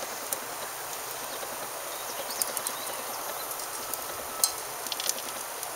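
Newly lit fire of lump charcoal and oak wood chunks catching in the firebox of an Ooni Karu 12 wood-fired pizza oven: scattered crackles and pops over a steady hiss.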